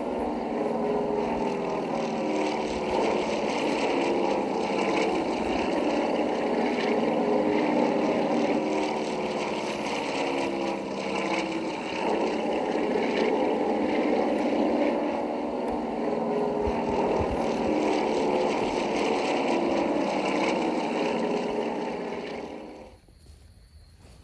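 Steady drone of propeller aircraft engines that cuts off suddenly near the end.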